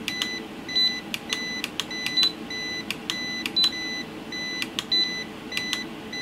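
Kaiweets ST600Y digital multimeter beeping in short, even-pitched beeps about twice a second: its over-range warning, with more than 600 volts on its input. Sharp clicks fall between the beeps as the calibrator's output-step button is pressed, over a low steady hum.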